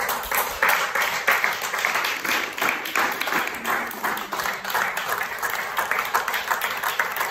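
Small audience applauding, a dense clatter of many hands clapping that starts abruptly.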